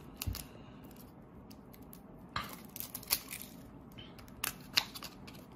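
A small cardboard playing-card box being handled: scattered light clicks and rustles of card and paper in the hands, a handful of sharper ticks in the second half.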